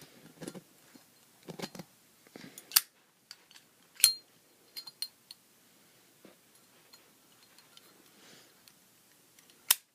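Zippo 1937 replica lighter being handled, its metal insert going back into the chrome case: scattered metallic clicks and clinks, with sharp clicks about three and four seconds in (the second with a brief ring) and again near the end.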